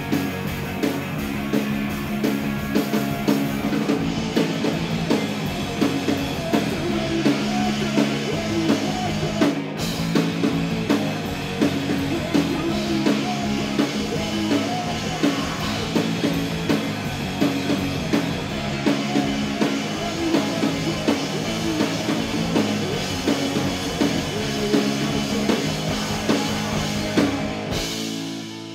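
Live rock band playing a song with drum kit, guitar and bass to a steady beat. Near the end the drums and cymbals stop and the music falls to quieter held notes.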